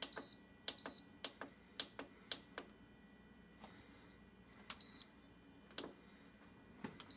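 Aroma digital rice cooker / slow cooker control panel being programmed: short high beeps as its buttons are pressed, two in the first second and another about five seconds in, with faint clicks of button presses between.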